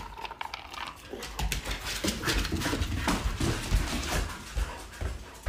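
Dry kibble rattling in a plastic bin at first, then two dogs scrambling and playing on a hardwood floor: quick, irregular paw thumps and claw clicks.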